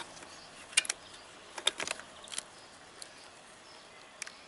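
Small metallic clicks and taps as a motorcycle battery's negative lead is fitted by hand onto its terminal: a quick double click, then a short cluster, then single clicks spaced out.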